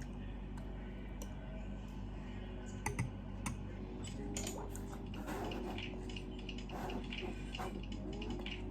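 Scattered light clicks and taps, irregular, over a low steady hum.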